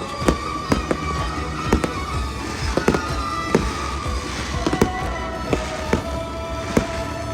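Multicolour aerial firework shells bursting in a rapid, irregular string of sharp bangs, roughly two a second. Steady held tones sound underneath.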